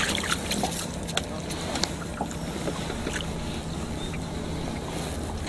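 Wind and water lapping against a small drifting boat, with a low steady hum underneath. Scattered light splashes and ticks in the first couple of seconds come from a hooked trout thrashing at the surface beside the boat.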